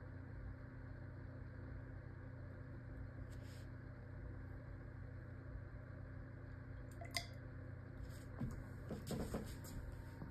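Quiet room tone with a steady low hum. A small click about seven seconds in, then a few soft knocks around nine seconds as a plastic dropper is handled and laid down on a wooden tabletop.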